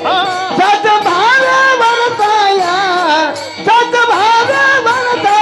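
Marathi devotional abhang being sung: a voice drawing out long, sliding, ornamented notes between the words of a line, over musical accompaniment.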